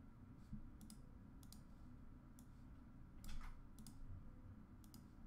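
Computer mouse clicks, faint and spaced about a second apart, with one louder click a little past the middle, over quiet room tone.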